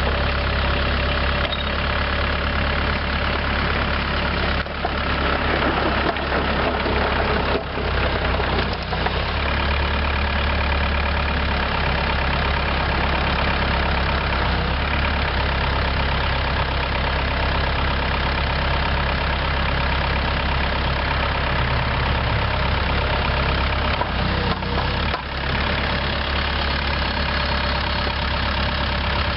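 Bobcat 430 compact excavator's Kubota V2203 four-cylinder diesel running steadily while the boom, arm and swing are worked. There are a few brief dips in the engine sound.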